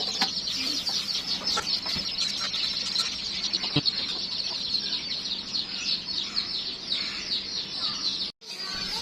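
A flock of chickens clucking and chirping, a dense high chirping that never lets up, with a few scattered knocks. The sound cuts out for an instant shortly before the end.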